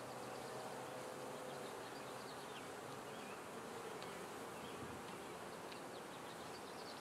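Honeybee colony buzzing in a steady low hum over the exposed frames of an opened Langstroth hive.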